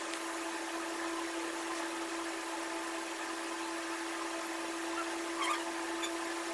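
Steady mechanical hum with one constant low tone over an even hiss, with a few faint, short high chirps near the end.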